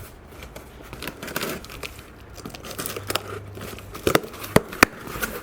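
Headphone packaging being opened and handled: crinkling, rustling and tearing, with three sharp clicks about four seconds in.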